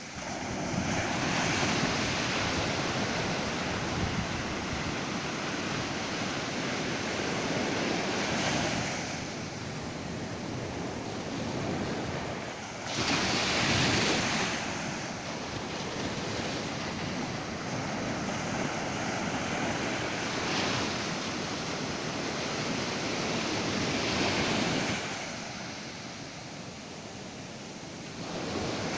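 Ocean surf breaking on a beach, waves washing in one after another with a steady roar between them; the loudest wave breaks about halfway through.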